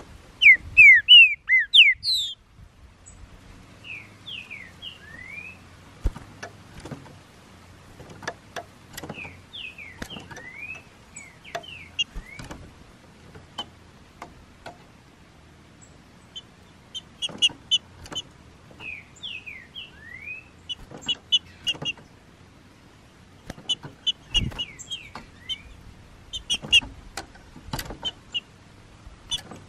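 Trinca-ferros (green-winged saltators) singing: short whistled phrases that slide in pitch, repeated again and again, one loud close phrase about a second in and fainter phrases after, with scattered sharp clicks.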